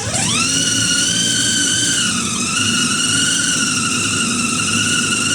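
Small electric motor powered from a DeWALT battery adapter, spinning up with a quickly rising whine and then running steadily with a high whine, which dips slightly in pitch about two seconds in.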